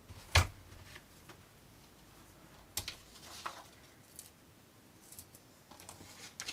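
Paper scissors and a paper pattern being handled: a sharp knock about half a second in, then a few light clicks and soft paper rustles.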